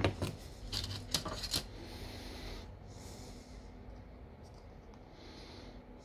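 A few small, sharp clicks and taps in the first second and a half as a precision screwdriver and a phone's internal parts are handled, then faint rubbing of a plastic cover being handled.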